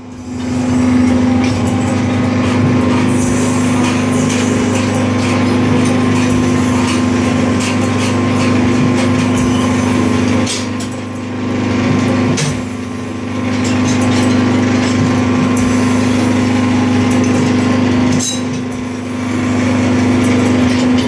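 Hydraulic power unit of a gallon-cap injection moulding machine running, a steady motor-and-pump hum that dips briefly about three times, with scattered clicks and knocks from the machine.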